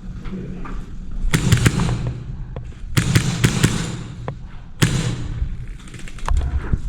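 Airsoft guns firing: sharp cracking shots in short clusters, a group about a second and a half in, another around three seconds, a single loud shot near five seconds, with smaller clicks scattered between.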